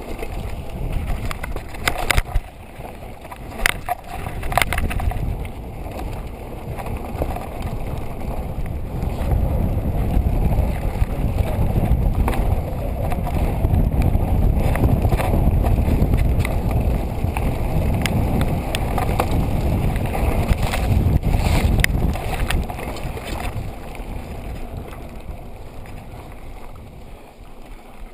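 Wind buffeting an action camera's microphone over the rumble of mountain-bike tyres on a gravel and dirt trail, with a few sharp rattles and knocks of the bike over bumps. It is loudest in the middle and fades over the last several seconds.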